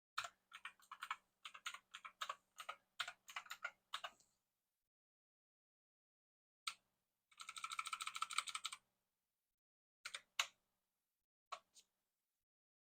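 Typing on a computer keyboard in short runs: a string of keystrokes for about four seconds, a pause, a quicker dense rattle of keys, then a few single key clicks.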